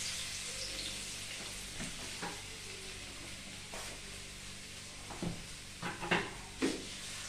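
Minced garlic sizzling in hot oil in a nonstick wok, a steady frying hiss. A few short sharp ticks break in, mostly in the second half.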